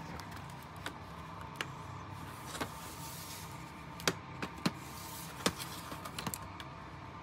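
Plastic snap-fit clips of an HP laptop's case clicking and popping as the panel is pried apart by hand: about nine sharp snaps, the loudest a little past the middle, over a steady low hum.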